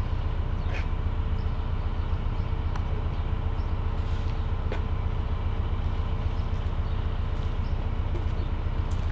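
Diesel locomotive engine running steadily at a constant pitch, with a few faint ticks over it.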